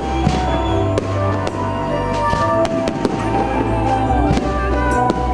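Fireworks bursting overhead in a run of sharp bangs, with music playing throughout.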